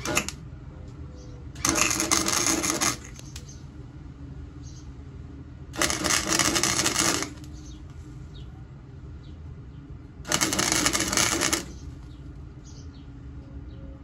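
Wire-feed welder laying tack welds on sheet-steel auto body panel: a brief crackle at the start, then three crackling, sizzling welds of a little over a second each, separated by a steady low hum.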